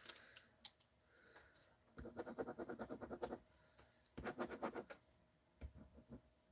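Pen writing on paper: two runs of quick scratching strokes, one about a second and a half long starting about two seconds in and a shorter one a little later, with a few small clicks before and after.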